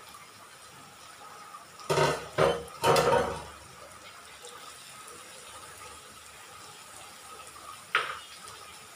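A bowl knocking and scraping against the rim of a metal kadai as chopped spinach is tipped into the pan, a cluster of clattering knocks about two to three and a half seconds in, then a single short ringing clink near the end.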